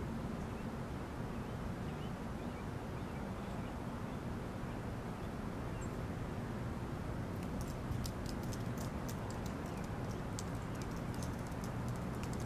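Steady low outdoor rumble. About seven seconds in, a quick irregular run of crisp crunches and clicks joins it: footsteps on gravel.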